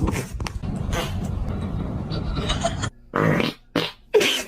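Fart sound effect: a long, low, raspy fart for nearly three seconds, then three short bursts.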